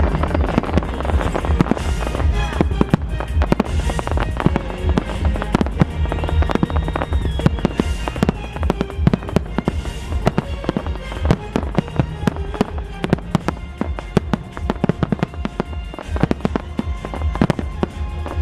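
Fireworks display: a rapid, dense barrage of bangs and crackling reports, many a second, over a deep rumble of booming shells.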